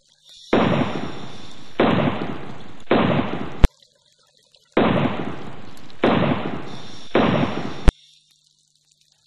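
Dubbed-in explosion sound effect: three loud blasts, each dying away over about a second, then a sharp crack. The same sequence plays twice.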